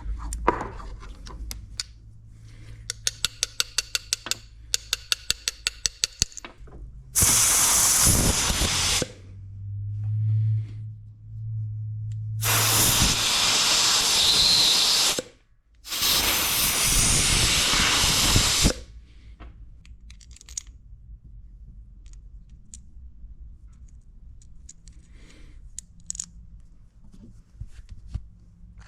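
Three long hissing sprays, each a couple of seconds, blasting through a dirty lawn mower carburetor to clean it, after a run of quick rattling clicks. Quieter small handling sounds follow.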